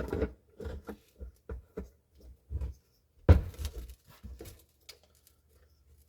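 Irregular clicks, taps and rattles of hands handling a replacement turn-signal bulb and its plastic socket, with one louder knock a little over three seconds in.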